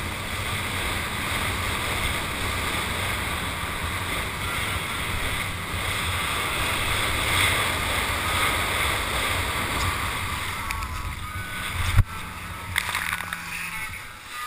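Water rushing under a wakeboard and wind buffeting a helmet-mounted microphone as the rider is towed, with a steady low hum underneath. About twelve seconds in, a sharp hit and splashing as the rider goes down into the water; the rushing noise then drops away.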